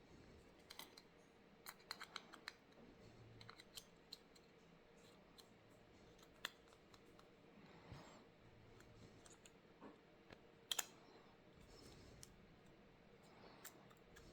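Faint, scattered small clicks and ticks of hand tools and parts being handled inside a smartphone during repair, bunched about two seconds in, with a sharper double click about two-thirds of the way through.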